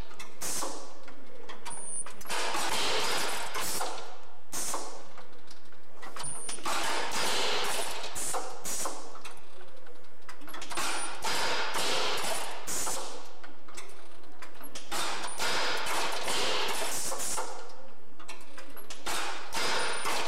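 A shop machine with roller bars running through a repeating cycle: mechanical noise swelling and fading about every two seconds, with a short sharp click every four to five seconds.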